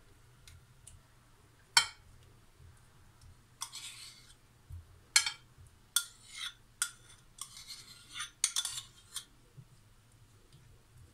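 A utensil scraping and clinking against a dish as sauce is spread over cauliflower florets: a series of sharp clinks with short scrapes between them.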